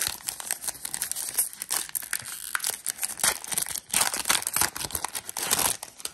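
Foil wrapper of a Panini Illusions football card pack crinkling as it is torn open and handled: a dense run of sharp crackles.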